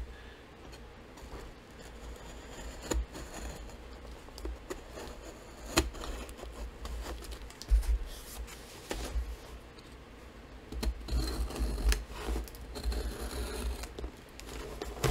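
A cardboard book mailer being handled and opened on a tabletop: cardboard and paper scraping and rustling, with a few sharp knocks, and the rustling busiest near the end.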